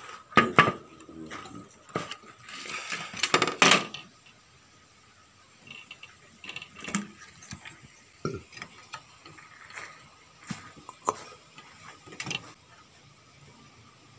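Handling clatter of an opened CRT TV and its circuit board: knocks and rattles of plastic and metal parts being moved, heaviest in the first four seconds, then scattered light clicks and taps.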